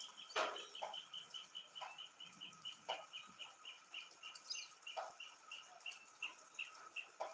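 A bird calling a long, even series of short high notes, about four a second and slowing a little toward the end. Scattered sharp drips of rainwater come in between.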